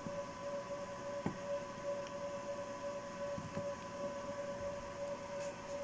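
Faint handling noise of a smartphone being pressed into a clear plastic case: soft rubbing and a few light clicks as the case edges snap over the phone. Under it runs a steady electrical hum with a faint whine.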